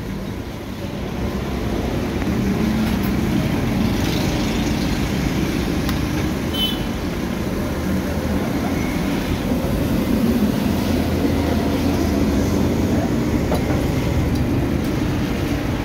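Steady running noise of a motor vehicle, a low hum held without a break.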